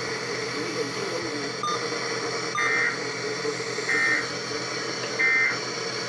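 Emergency Alert System end-of-message data code from a TV speaker: three short bursts of buzzing two-tone data, a little over a second apart, over a steady hiss. It signals that the alert broadcast is over.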